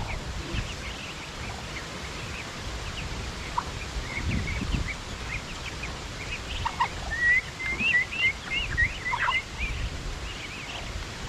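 Ducklings peeping: many short, high peeps, coming thickest in a quick run about two-thirds of the way through.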